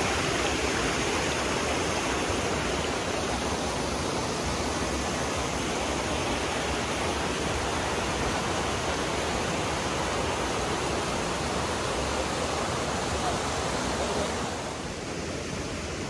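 Waterfall rushing steadily, a dense even wash of falling water that drops slightly in level about a second and a half before the end.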